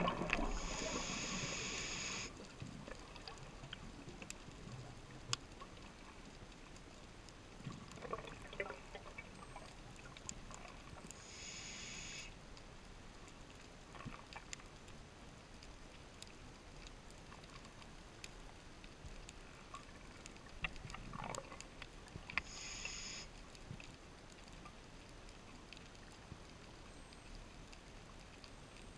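Underwater sound of a scuba diver breathing through a regulator: three bursts of exhaled bubbles hiss and gurgle about ten seconds apart, with softer inhalation swishes between them. Faint scattered clicks and crackle run underneath.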